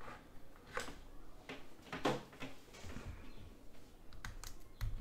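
Scattered light clicks and taps of hands handling a Nintendo Switch console and a USB-C charging cable as the cable is plugged into the console's port, with a louder knock near the end.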